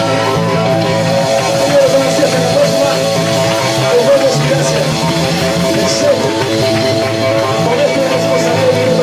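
Live rock band playing loud: electric guitar over bass and a drum kit, with cymbal crashes.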